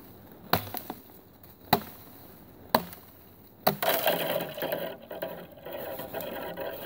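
A 1060 carbon steel katana chopping into saplings and brush: four sharp strikes about a second apart. After the last strike comes a few seconds of continuous noise.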